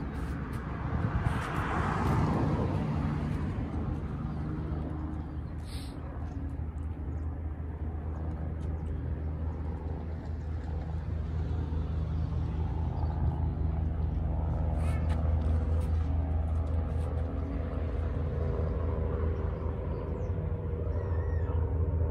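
Street ambience: a vehicle engine's steady low hum, slowly growing louder, with a car passing about two seconds in.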